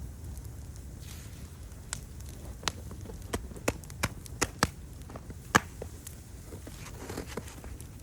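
Wood fire crackling and popping over a low steady rumble of the flames, with a run of sharp, separate pops, the loudest a little past halfway.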